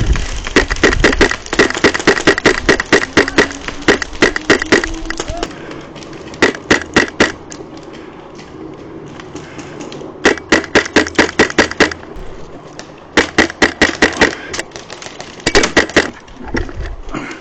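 MTW Wolverine HPA airsoft rifle firing rapid strings of shots, roughly seven a second. There are five strings: a long one for the first five seconds, then shorter ones.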